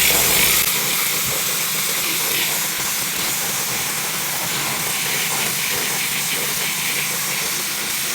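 Pressure washer spraying plain water onto a wooden sign: a steady hiss of the water jet.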